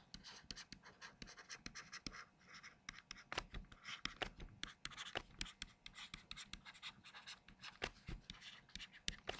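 Stylus writing by hand on a tablet screen: a faint, irregular run of small taps and scratches.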